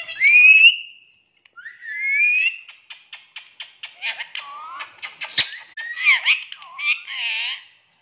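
Rose-ringed (Indian ringneck) parakeet calling: two rising whistles, then a run of rapid clicks, then chattering, speech-like squawks in the second half.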